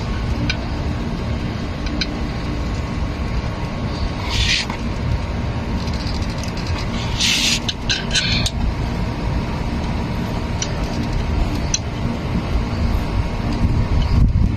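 Dodge Charger engine idling steadily after its timing belt replacement, with two short hisses partway through.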